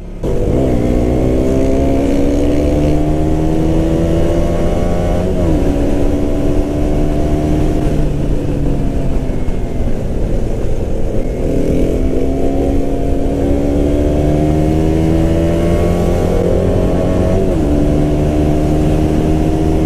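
2017 KTM Duke 125's single-cylinder four-stroke engine on its stock exhaust, accelerating under way, with wind noise. The revs climb, drop quickly at a gear change about five seconds in, hold and then ease off, then climb again to another quick gear change near the end.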